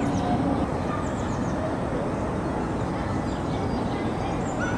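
Steady outdoor background rumble with birds calling here and there over it.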